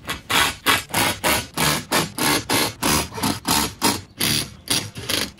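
Rapid, evenly spaced rasping strokes, about four a second, each one short and harsh.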